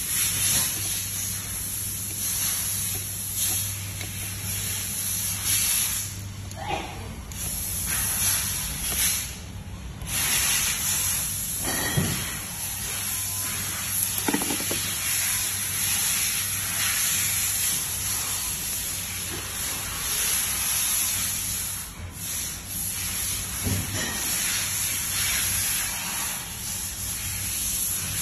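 A steady, high-pitched hiss over a low hum, cutting out briefly twice, with a few faint knocks and rubs of hands handling the wiring and switches inside an electric valve actuator's metal housing.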